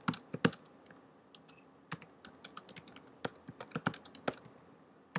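Typing on a computer keyboard: a few keystrokes, a pause of about a second and a half, then a quick run of keystrokes that stops shortly before the end.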